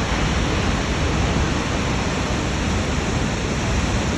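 Steady, unbroken rush of Snoqualmie Falls, a large waterfall, heard as a constant noise with a heavy low rumble.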